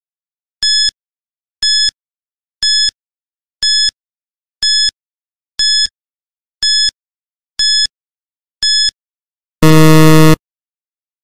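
Quiz countdown timer sound effect: a short high beep once a second, then a loud, low buzzer lasting just under a second as the timer reaches zero, signalling time up.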